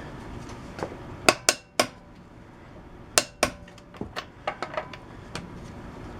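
Click-type torque wrench set to 150 ft-lb clicking out on the lug nuts, with the socket clinking on steel: a few sharp metallic clicks, some in quick pairs, then lighter ticks. The nuts hold past 150 ft-lb, so they were tightened beyond that.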